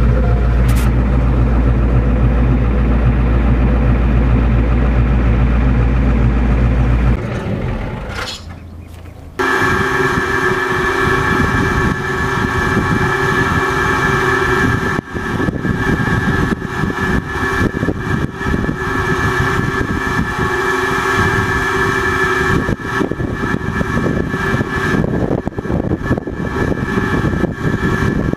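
Pickup truck running, heard inside the cab as a deep steady drone. About eight seconds in it fades out, and farm machinery takes over, running steadily with a constant whine.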